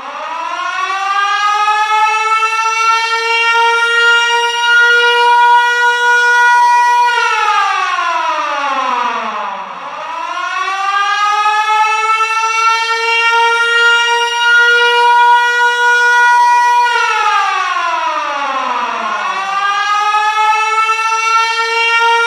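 Military warning siren sounding in long cycles. It rises to a steady high wail, holds it for several seconds, then slides down in pitch. This happens twice, and it starts rising again near the end.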